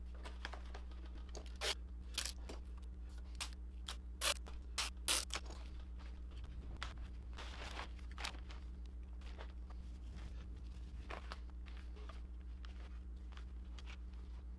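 Thin cedar and mahogany laminating strips being handled and set down on a workbench: a string of sharp wooden clicks and knocks through the first five seconds or so, then softer crinkling of plastic sheeting, over a steady low hum.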